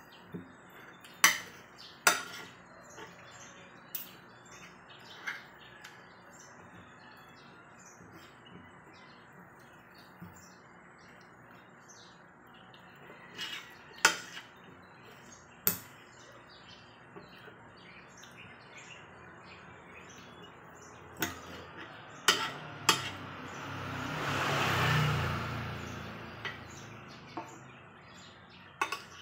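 A metal fork and spoon clink and scrape against a ceramic plate in sharp, irregular clinks a few seconds apart. Past the middle, a rushing noise swells and fades over about three seconds.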